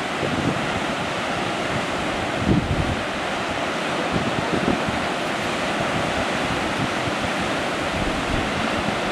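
Ocean surf breaking and washing up a sandy cove among rocks, a steady rushing wash of water. Wind buffets the microphone in low gusts now and then.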